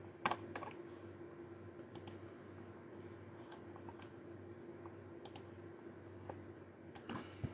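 About a dozen light, scattered clicks, some in quick pairs, over a faint steady low hum.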